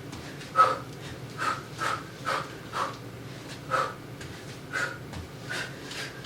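Sharp, short exhalations, about two a second, one with each punch and knee strike of a fast kickboxing combination.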